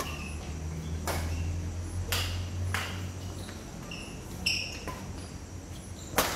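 Badminton rackets hitting a shuttlecock during a doubles rally: several sharp cracks a second or two apart, the loudest near the end. Short high chirps and a steady low hum run underneath.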